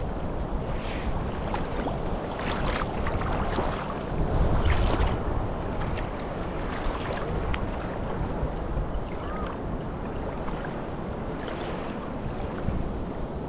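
Wind blowing on the microphone over small waves lapping and washing on a shallow sandy shore, a steady noisy wash.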